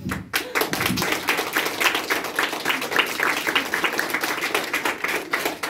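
Audience applauding, starting suddenly after a pause and keeping up a dense, even clatter of hand claps.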